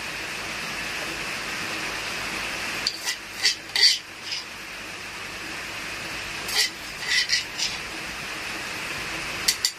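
A metal spoon scraping and tapping against a stone mortar as thick chili paste is scooped out: about ten short clicks in three clusters, over a steady background hiss.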